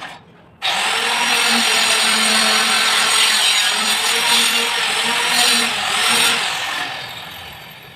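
Handheld electric power tool running: it starts suddenly, runs steadily for about five and a half seconds, then is switched off and fades out.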